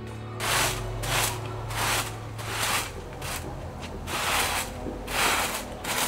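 Rhythmic rasping, scraping strokes, about one to two a second, each a short hiss-like swish.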